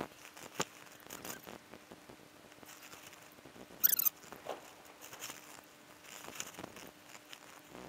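Baitcasting rod and reel being cast and then cranked: a sharp click about half a second in, then small rhythmic clicking and whirring as the reel handle turns and winds in line. About four seconds in, a brief shrill chirp is the loudest sound.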